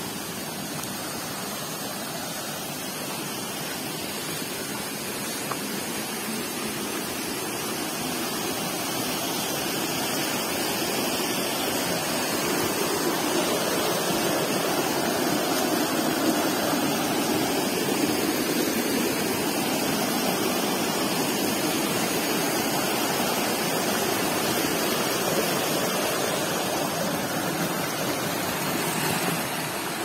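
Waterfall: a steady noise of rushing, splashing water that grows louder over the first dozen seconds and then holds.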